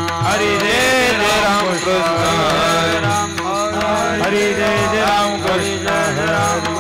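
Kirtan devotional music: a voice singing a long, winding melody over steady held accompanying notes.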